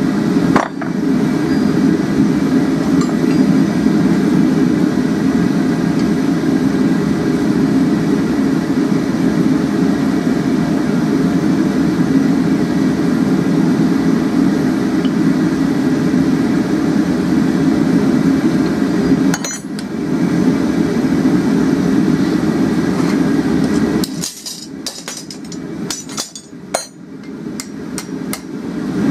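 Steady roar of a gas forge burner. About five seconds before the end the roar drops away and there are several light metallic clinks of steel against steel.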